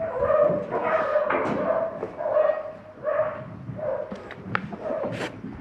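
Sheep bleating repeatedly in a crowded handling pen, call after call, with a short hiss near the end.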